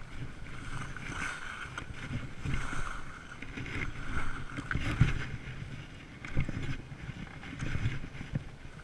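Skis hissing and scraping over packed snow at speed, with wind rumbling on the microphone. Several thumps as the skis ride over bumps, the loudest about five seconds in.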